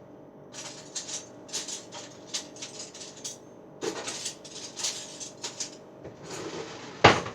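Cutlery and dishes being handled: two runs of short clinks and scrapes, then one loud knock near the end.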